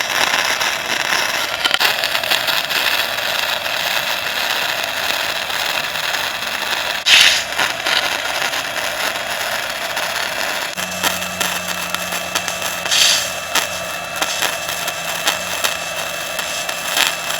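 Welding arc crackling steadily while an exhaust pipe is welded, with a few louder pops; it starts and stops abruptly, and a low hum comes in partway through.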